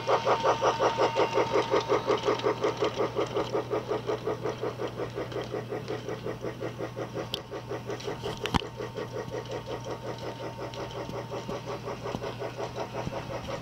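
Toy Story Ready To Play toy train running around its plastic track, with a quick rhythmic chugging of about four beats a second over a steady motor hum. It is loudest as the train passes close at the start and fades as it moves round the far side of the loop. Two sharp clicks come about halfway through.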